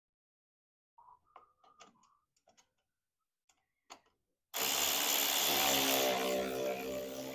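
Light metallic clicks and clinks of a wrench working the exhaust header clamp bolts, then about four and a half seconds in a loud, steady machine noise with a hum starts suddenly and keeps running.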